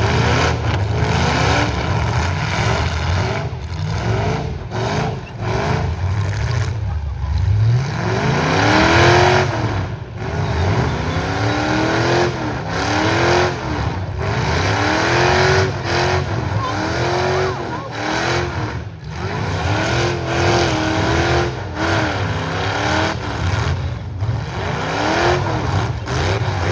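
Demolition-derby stock-truck engines revving hard again and again. Their pitch climbs and drops every second or two, with several engines overlapping.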